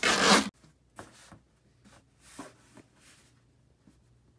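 A short rasping rip of packing tape being pulled and torn from a handheld dispenser on a cardboard box, followed by a few faint taps and rustles.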